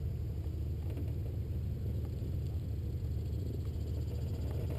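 Steady low rumble of the tow plane's piston engine idling.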